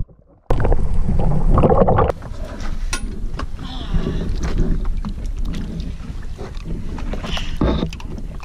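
Wind buffeting the microphone over water moving against a small boat's hull. The noise cuts in suddenly about half a second in and is loudest for the next second and a half, then settles to a steadier rush.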